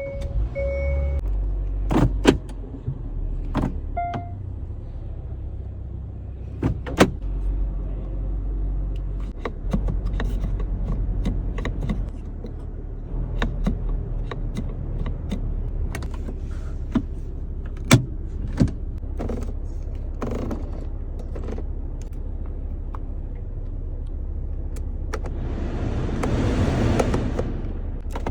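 A 2023 Hyundai Venue's cabin and body sounds: a string of sharp clicks and thunks from its doors, latches and controls over a low steady hum. A short electronic chime sounds about four seconds in, and a couple of seconds of rushing noise come near the end.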